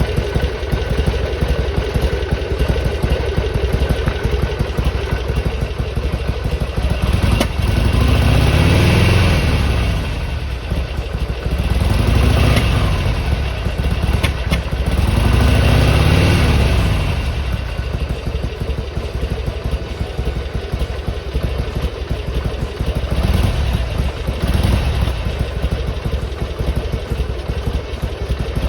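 Harley-Davidson Sportster XL883R's air-cooled 883 cc V-twin idling while warming up. Its revs rise and fall three times in the middle, each swell lasting a second or two, then it settles back to idle. The owner is troubled by the engine 'sneezing' (spitting back) during warm-up and wonders whether he has over-adjusted the idle.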